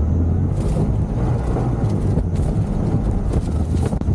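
Moped engine running as it rides, with heavy wind buffeting the microphone and a few sharp knocks and rattles from bumps, about half a second in, midway and near the end.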